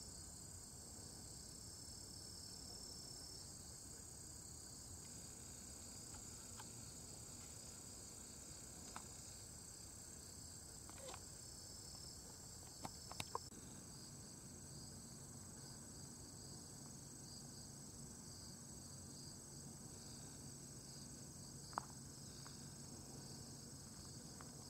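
A steady, faint, high-pitched chorus of crickets chirring, with a few short clicks scattered through it.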